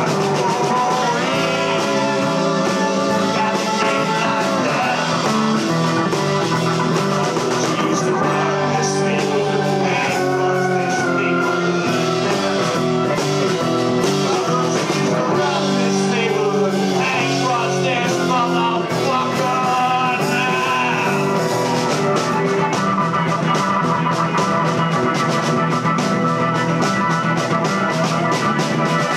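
Live rock band playing a stretch of the song without lyrics: electric and acoustic guitars over bass and drums.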